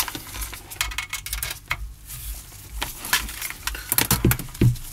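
Clicks and light clatter of small hard items being handled: a string of quick taps and knocks, the loudest a couple of knocks near the end.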